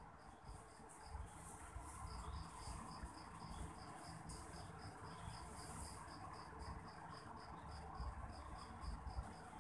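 Insect chirping steadily in the background, a high-pitched pulse about five times a second, over the faint rustle and shuffle of fabric being handled.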